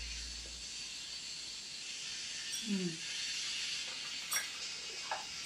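Quiet room with a steady hiss. About halfway through there is one brief low, falling 'mm' from someone eating, and near the end two faint clicks.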